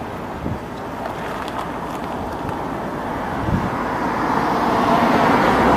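A car drawing closer, its engine and road noise growing louder over the second half.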